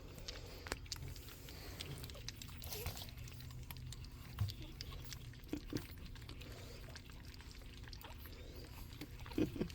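Young pug puppies making a few faint, short squeaks and grunts, with scattered soft clicks from them moving about.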